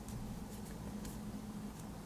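Steady low hum of room tone, with a few faint, light high-pitched ticks.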